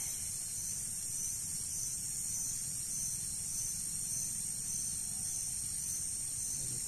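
Steady high-pitched chorus of night insects, crickets among them, with a faint low rumble underneath.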